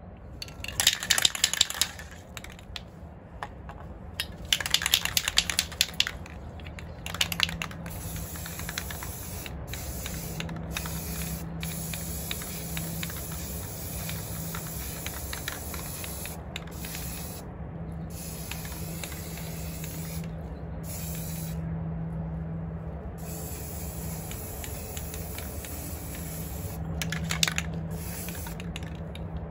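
Aerosol spray-paint can: the mixing ball rattles as the can is shaken twice in the first few seconds, then long spells of spray hiss broken by brief pauses. Another short rattle of shaking comes near the end.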